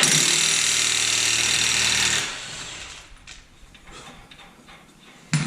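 Impact wrench running hard for about two seconds, breaking loose the 32 mm front axle nut on a Nissan Rogue's CV axle, then cutting off.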